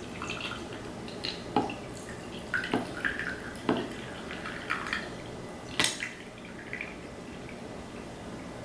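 Watermelon lemonade being poured into a cup over ice cubes: a soft trickle of liquid with several short, sharp clicks of ice and cup scattered through it.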